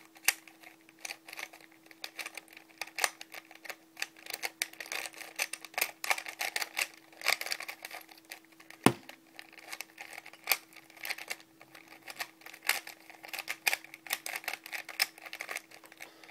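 Homemade 3x4x5 Siamese puzzle cube being turned rapidly during a solve: a fast, irregular run of plastic clicks and clacks as the layers are turned, with one louder clack about nine seconds in.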